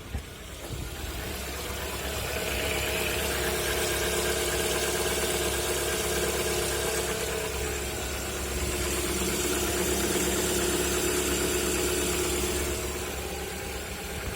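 Lada Vesta 1.6-litre four-cylinder engine running, getting louder over the first couple of seconds and then holding steady, with a knock that the owner can't place between the hydraulic lifters and the pistons.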